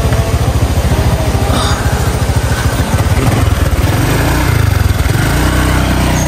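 Motorcycle engine running on the road, a fast low pulsing whose pitch shifts about four seconds in.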